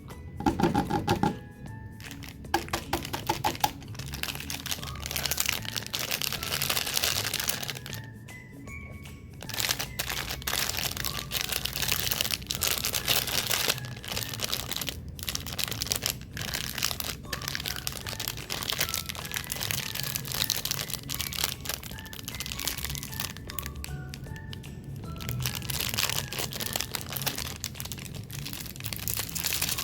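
Plastic snack packaging crinkling and crackling as it is handled and torn open, in dense bursts with a few short pauses, over soft background music.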